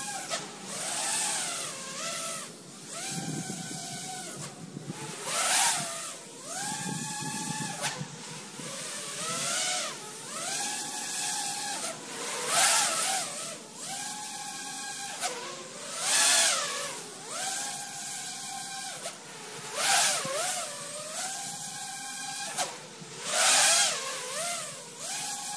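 5-inch FPV racing quadcopter's brushless motors (Rebel 2205 2400kv) and props whining, the pitch rising, holding and dropping again about every three and a half seconds as the throttle is punched and cut through each power loop, with a burst of rushing noise on every cycle.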